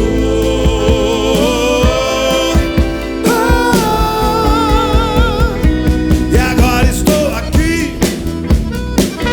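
Rock band playing live, with drums and bass under a lead melody of long held notes with vibrato.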